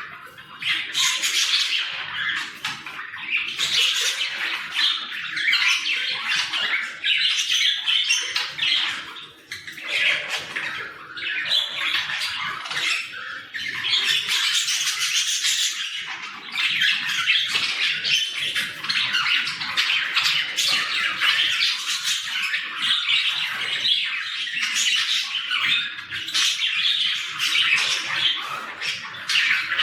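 Several budgerigars chattering and squawking together in a steady, busy stream of calls while they play and play-fight, with a short lull about a third of the way in.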